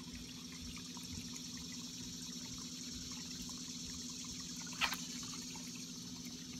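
Water trickling steadily into a small backyard pond, over a low steady hum, with one brief splash or knock near the five-second mark.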